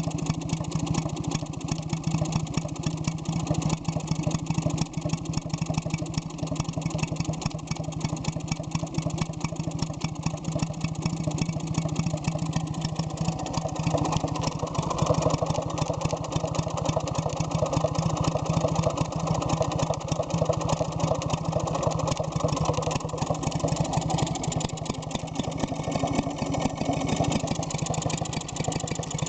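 1948–49 Villiers WX11 two-stroke water-cooled stationary engine running steadily at a fast, even firing beat, freshly rebuilt with new rings and bearings.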